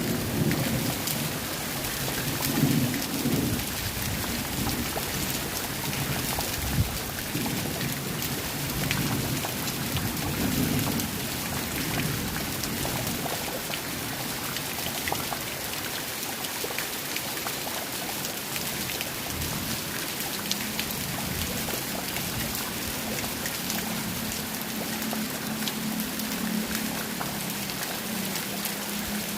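Steady heavy rain falling, a dense hiss full of fine drop patter. Low rumbling comes and goes in the first half, and a steady low hum sets in about two-thirds of the way through.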